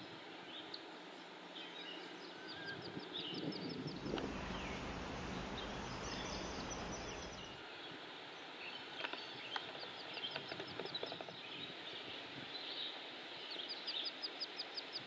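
Lone duckling peeping: short, high calls repeated in quick runs, with other bird chirps and a steady outdoor background hiss. A louder even rush of noise fills the middle few seconds.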